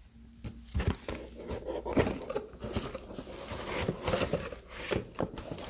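Cardboard box and paper packaging being handled: irregular rustling, scraping and soft knocks as the contents are taken out of the box.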